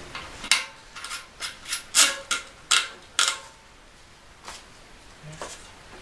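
Sharp, irregular metal clicks and scrapes from a bicycle rear wheel's sprocket cassette being handled and wiped, about eight in the first three seconds, then only a few faint ticks.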